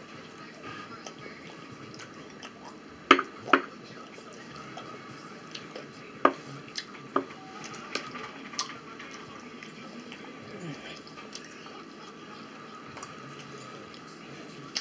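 Eating sounds: a fork clicking against a plastic food tray, with wet mouth smacks from chewing. About eight short sharp clicks in all, the loudest two close together about three seconds in, the rest scattered between six and nine seconds.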